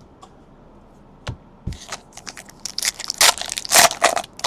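Foil trading-card pack wrappers crinkling and tearing as packs are opened, in a run of short crackling bursts from about two seconds in, loudest near the end. Before that, a single sharp click and then a low thump.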